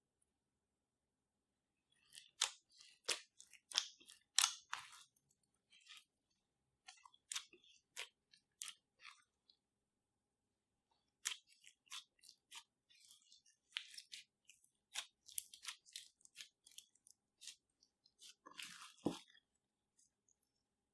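Clear slime loaded with glitter being squished and poked by hand, making irregular sharp pops and clicks. They start about two seconds in and pause briefly about halfway.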